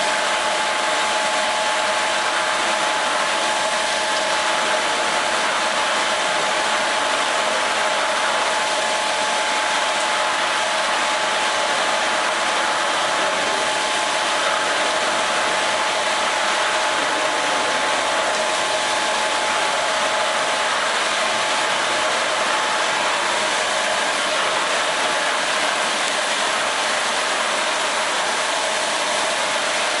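Hanta Systems AMP-02 PLC automatic carpet washing machine running, its rotating scrub brushes and water spray jets working over a rug on the conveyor. It makes a steady mechanical whirring rush with a faint steady whine.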